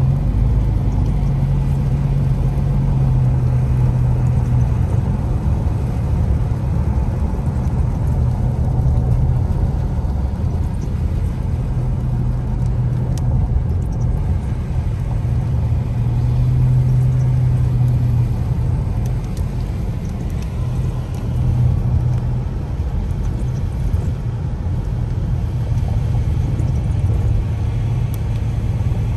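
Car driving on a wet road, heard from inside the cabin: a steady low engine and road drone that swells and eases a little, with tyre noise underneath.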